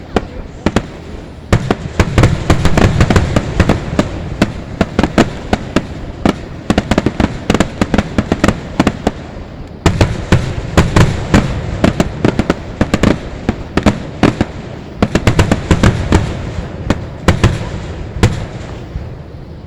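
Fireworks going off in a rapid barrage of overlapping bangs and crackles, several a second, with heavy low booms coming in waves. The barrage thins out near the end.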